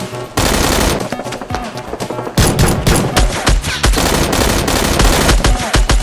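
Rapid automatic gunfire, dense bursts of shots that start about half a second in and grow heavier from about two and a half seconds in, over background music.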